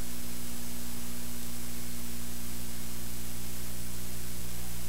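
Steady electrical hum with hiss from an early-1980s analog videotape's audio track, with no programme sound yet.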